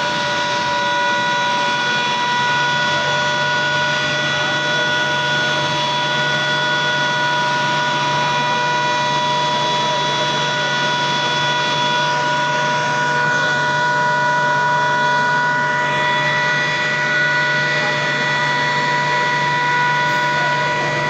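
Fire engine's pump running steadily as a hose plays water on a burning car: a constant machine whine of several tones over a rushing hiss of water and fire.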